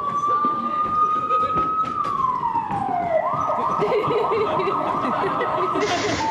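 Siren sound: a tone climbing slowly in a long wail, sliding back down, then switching to a fast yelping warble.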